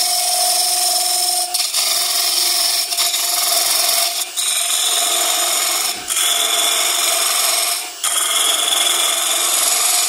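Spindle gouge cutting into the end grain of a spinning workpiece on a wood lathe: a steady rasping hiss over a steady hum. It is broken by short gaps about every one and a half to two seconds as the gouge is pushed in and drawn out on each pass of the hollowing.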